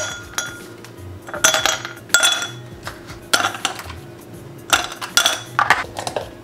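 Dishes and cutlery clinking: a handful of sharp, ringing clinks, two or three close together near the end.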